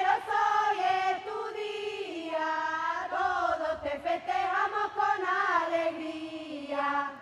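Singing: a slow melody of long, held notes that slide between pitches, ending at about seven seconds.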